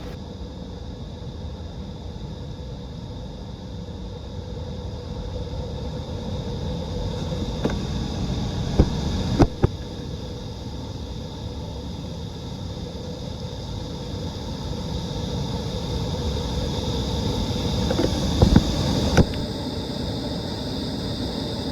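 Waterfall rushing steadily, growing slowly louder, with a few sharp knocks about halfway through and again near the end.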